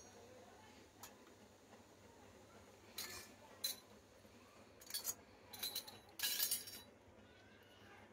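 Small metal toy kitchen utensils clinking as they are picked up and set down, several light separate clinks with a brief high ring, coming closest together a little past the middle.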